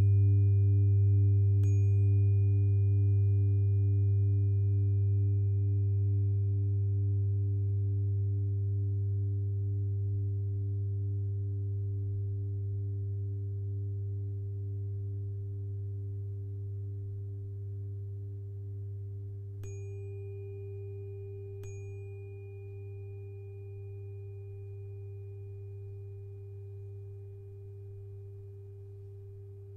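A 396 Hz tuning fork is struck twice near the start and twice more about two-thirds of the way through. Each strike gives a short bright ping and then a long, pure, steady ring. Underneath is a loud steady low hum and a softly pulsing mid tone, and the whole sound slowly fades.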